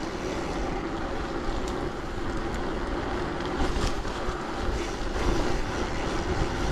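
Steady ride noise of a road bike rolling along a wet street: tyres hissing on the wet tarmac, with wind rumbling on the body-mounted camera's microphone.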